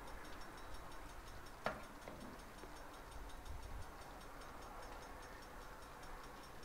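A serving utensil scraping and clinking in a cast-iron Dutch oven as goulash is ladled onto a plate: one sharp clink about a second and a half in and a softer one just after, over a low steady background with faint, fast ticking.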